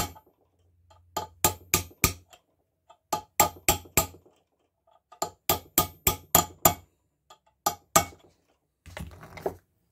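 Light hammer taps on metal in several quick runs of a few strikes each, driving a timing-side part down onto the crankshaft of a 1953 NSU Konsul 500 cc engine.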